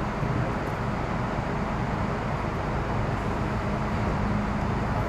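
Steady interior noise of an MTR Metro Cammell M-Train car, a constant hum with an even rush and no sudden events. The train is most likely standing at the platform between two door-closing warnings.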